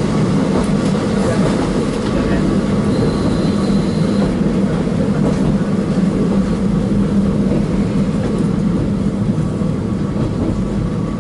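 Steady running noise heard inside a KiHa 40 diesel railcar: a constant low diesel drone under the rumble of wheels on the track.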